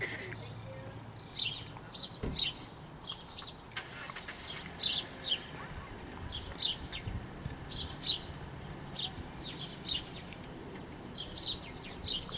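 Small birds chirping in short, high chirps that each drop in pitch, coming in twos and threes about every second.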